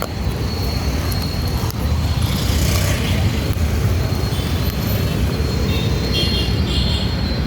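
Steady low rumble of road traffic, with faint short high tones near the end.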